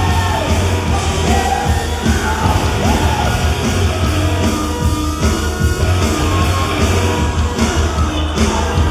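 Loud rock music with a steady heavy bass beat, with shouted vocal lines in the first few seconds.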